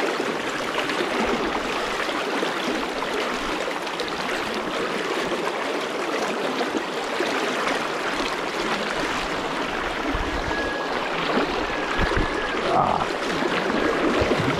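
Fast, shallow river current rushing over rocks in a riffle: a steady wash of water noise.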